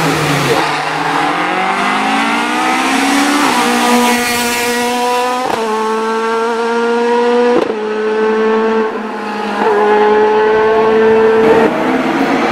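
Ford Escort Mk2 rally car's naturally aspirated 2.5-litre Cosworth YB four-cylinder engine easing off through a chicane, then accelerating hard away, revving up through the gears. There are four quick upshifts of its sequential gearbox, each a sharp crack with a small drop in pitch.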